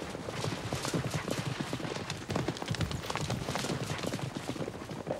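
Horses galloping, a fast, dense clatter of hoofbeats.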